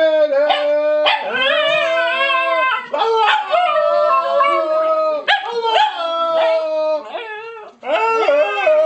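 A dog howling in a series of long, wavering notes, each held a second or two with short breaks between. The pitch rises and falls from note to note like a sung tune.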